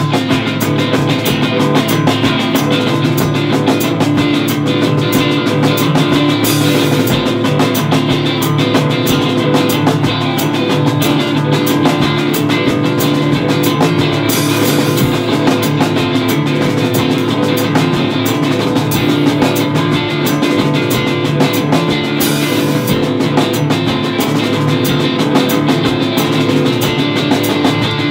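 Rock band playing live: guitar over a drum kit, with a steady run of drum and cymbal hits and a cymbal wash about every seven to eight seconds.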